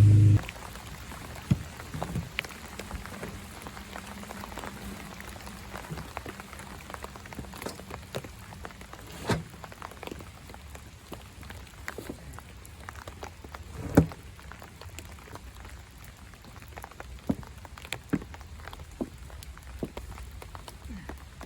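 Rain falling, a steady patter with many scattered sharp drop clicks and a few louder knocks. A loud low hum cuts off abruptly at the very start.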